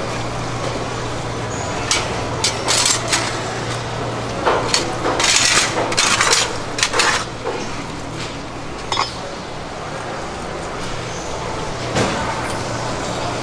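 Metal clinks and knocks of knives and handled fish on a stainless steel counter and tray, a scatter of sharp clicks busiest between about two and seven seconds in, with single knocks later, over a steady low hum.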